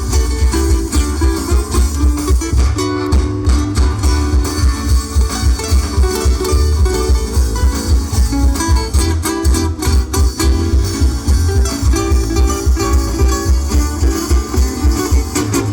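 Live instrumental music on plucked strings, with quick melody notes over a steady, pulsing bass.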